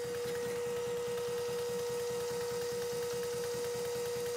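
A Steptoe machine tool running steadily, its motor and drive giving a constant hum with a steady mid-pitched whine over a fast low pulsing.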